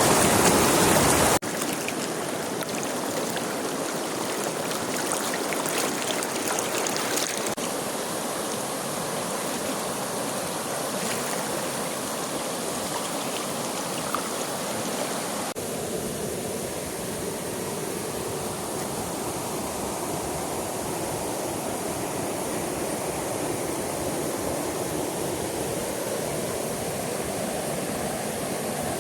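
Flowing mountain stream water: a steady rush and splash. It drops suddenly in loudness about a second and a half in, and its tone shifts abruptly twice more later on.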